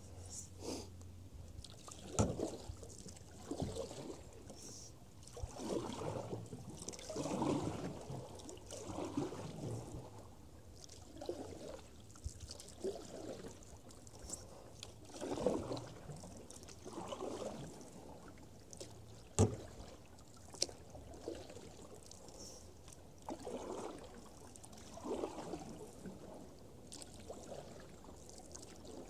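Canoe paddle strokes pulling through the water, an uneven swish every second or two with splashing and drips off the blade. A few sharp knocks stand out, the loudest about two seconds in and again near the middle.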